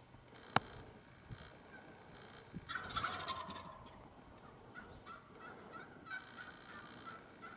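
Wild turkey gobbling about three seconds in, a loud rolling burst that falls in pitch, followed by a run of short high turkey calls. A single sharp click about half a second in.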